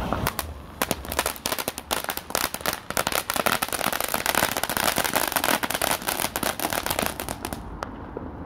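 Firework going off at close range: a long, dense run of rapid crackling pops that stops abruptly near the end, followed by a single stray pop.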